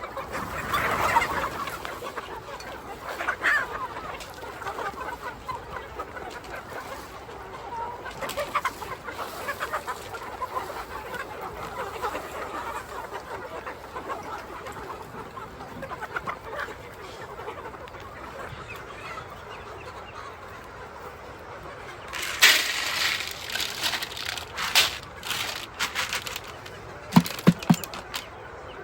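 A flock of chickens clucking, with scattered short calls. Near the end comes a cluster of loud, sharp clattering noises and a few low knocks.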